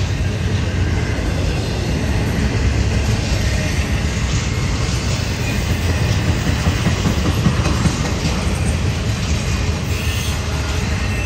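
Double-stack intermodal freight cars rolling past: a steady rumble and clatter of steel wheels on the rails.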